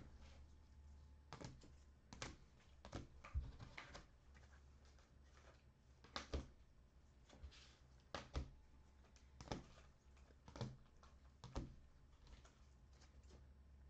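Trading cards in rigid plastic toploaders clicking and tapping as they are handled, shuffled and set down one after another, about one tap a second, over a low steady hum.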